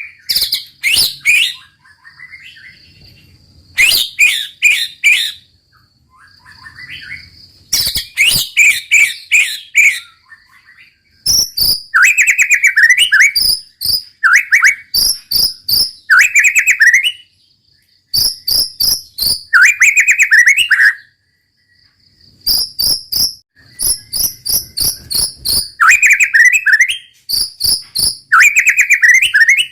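White-rumped shama singing loudly in quick, varied phrases: volleys of rapid sharp repeated notes alternating with rising whistled sweeps, with short breaks between phrases. A faint steady high trill, like an insect's, runs behind the song.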